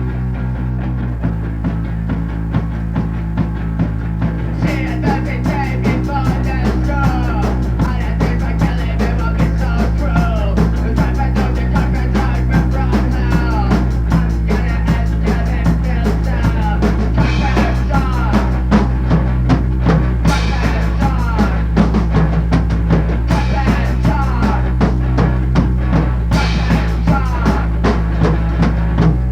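Rock music. It opens on sustained low, droning notes, then a drum kit comes in a little under five seconds in with a steady beat.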